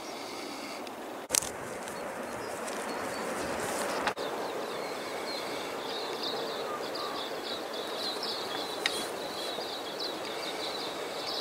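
Outdoor rural ambience: a steady rushing hiss with high, rapidly repeated chirping from about four seconds in. Sharp clicks come at about one second, four seconds and nine seconds in.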